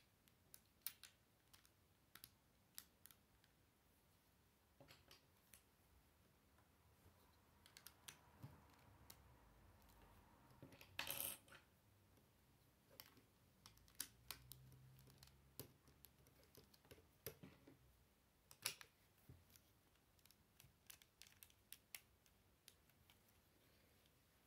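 Plastic Lego bricks clicking and tapping as they are handled and pressed together, a scattering of short sharp clicks with a brief clattering rattle near the middle.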